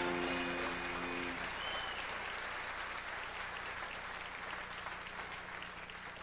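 Audience applauding, slowly dying away. A short held chord from the band sounds under the clapping in the first second or so.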